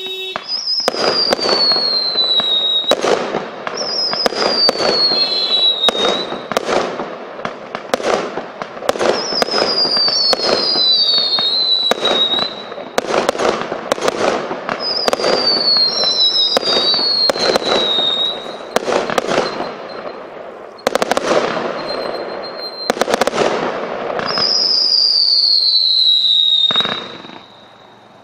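100-shot consumer fireworks cake (Traffic Block) firing shot after shot, a steady run of sharp bangs and bursts. Repeated high whistles fall in pitch over about a second each, and a longer, louder whistle comes near the end before the firing dies away.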